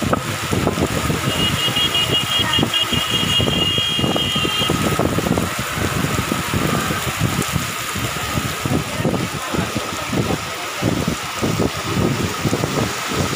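Heavy rain pouring onto a street, a dense steady hiss with uneven low rumbling. About a second in, a high pulsing beep sounds for roughly three seconds.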